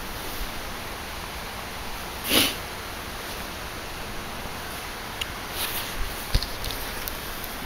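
Small wood fire in a camp stove under a steel mug, crackling with a few sharp pops and a knock late on, over a steady outdoor hiss. One short breathy hiss about two seconds in is the loudest sound.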